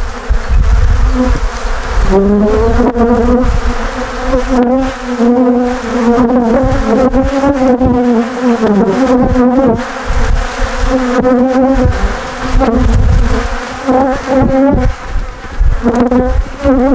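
Swarm of honeybees buzzing loudly and close, with single bees' drones rising and falling in pitch as they fly past. The colony is stirred up by being swept off the frames with a bee brush.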